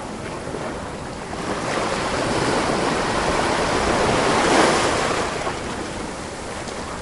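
Sea surf: waves washing onto a shore in a steady rush, one wave swelling to its loudest a little past halfway and then drawing back.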